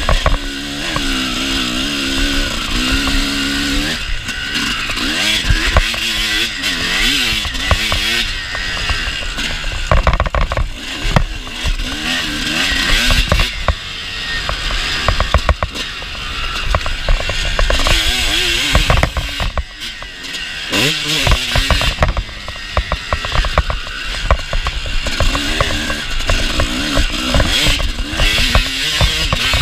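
Kawasaki KX250 motocross bike's engine being ridden hard, revving up and dropping off again and again as the throttle opens and closes, with a short lull about two-thirds through. Wind noise and sharp clatters from the bike hitting bumps run underneath.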